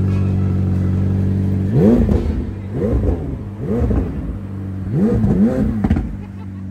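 McLaren 765LT Spider's twin-turbo V8 idling steadily, then revved in about five quick blips that each rise and fall in pitch, settling back down near the end.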